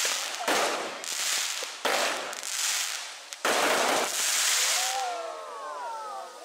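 Underwater goldfish fireworks (suichū kingyo hanabi) going off on the water's surface. Three loud hissing bursts start suddenly about a second and a half apart, and the last one is the longest.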